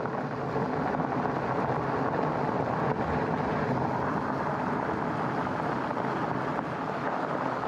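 Steady rushing noise of a fatbike ridden downhill: wind over the microphone and the fat tyres rolling over the trail.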